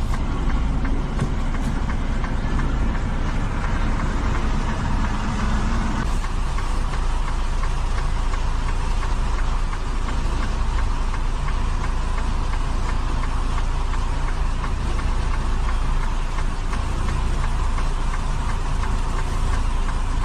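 Semi-truck's diesel engine running at low speed, heard from inside the cab as the truck maneuvers slowly across a lot; the engine note eases a little about six seconds in.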